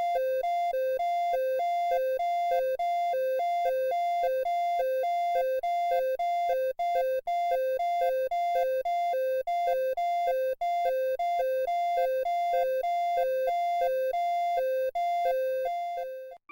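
Electronic emergency alert tone: two pitches, a higher and a lower one, alternating quickly and evenly over and over, fading out near the end.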